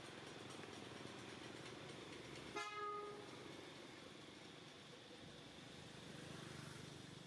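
A single short horn toot about two and a half seconds in: one steady, even tone lasting about half a second, over faint, steady outdoor background noise.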